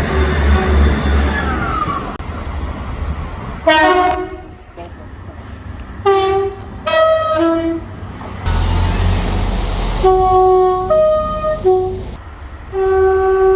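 A run of train horn blasts from different trains: short two-tone blasts of two notes, one after the other. A low train rumble is heard between some of them, and a long steady horn blast starts near the end.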